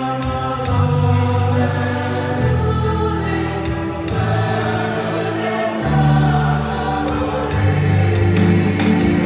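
A mixed choir singing a medley of Indonesian regional songs, holding full chords whose low notes change every second or two. Sharp taps sound now and then over the singing.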